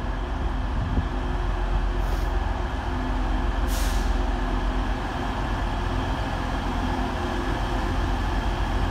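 Class 185 diesel multiple unit's diesel engines running with a steady low rumble and hum as it draws slowly into the platform and stops, with two short hisses of air about two and four seconds in.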